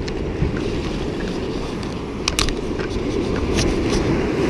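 Surf washing and breaking against jetty rocks, with wind rumbling on the microphone, and a couple of sharp clicks a little over two seconds in.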